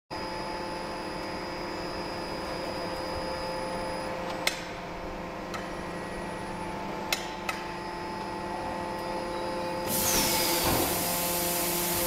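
Rotor aluminium die casting machine running with a steady hum, a few sharp clicks about four and seven seconds in, then a loud rush of hiss with a short falling whistle about ten seconds in, as from the machine's pneumatics.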